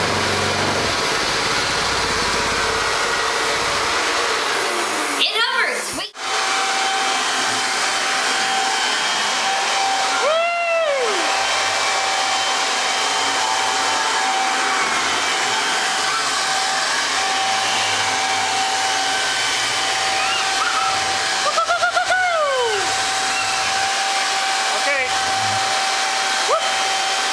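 Toro corded electric leaf blower running steadily at full speed as the lift fan of a homemade inflatable hovercraft: a loud, even rush of air with a steady motor whine. It drops out briefly about six seconds in.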